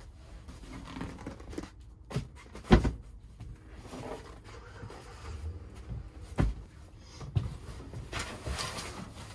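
Camper dinette cushions being handled and set into place: several dull thumps, the loudest about three seconds in, with rustling of handling between them.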